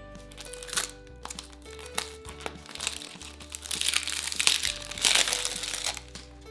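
Plastic toy packaging crinkling and crackling as it is handled and torn open, with sharp snaps and a long dense stretch of crinkling in the second half, over steady background music.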